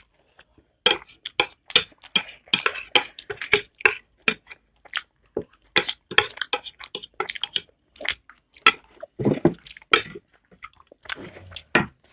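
Eating at close range: cutlery clinking and scraping on a plate in quick, irregular clicks, mixed with chewing.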